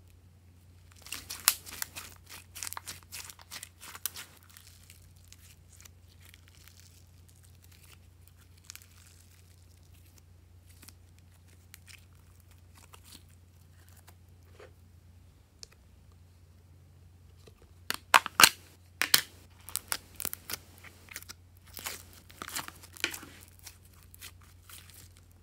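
Pink glossy slime stretched, folded and squeezed by hand, giving sticky crackling and popping clicks. The crackling comes in a burst near the start and again, louder, in the last third, with quieter handling in between.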